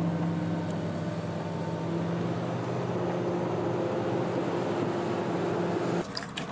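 Tracked excavator's diesel engine running with a steady, even drone. Near the end it cuts off abruptly, and a few sharp knocks and clatters of wreckage being handled follow.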